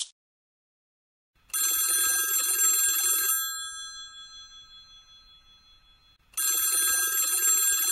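Telephone ringing with a bell-like ring, twice. The first ring lasts about two seconds and rings out slowly, and the second starts about six seconds in.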